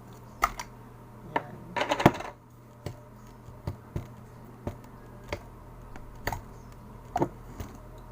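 Cheese slime being squeezed and poked by hand, giving short, sharp clicks and pops at irregular spacing, about one or two a second, with a louder cluster about two seconds in.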